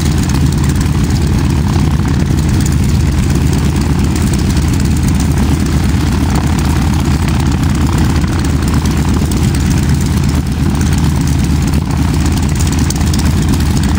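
Air Tractor crop duster's engine idling steadily on the ground before take-off.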